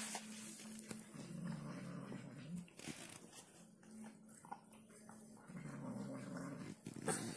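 Domestic cat growling low and steadily as it eats from its bowl, the growl swelling louder twice, with a few faint clicks of eating.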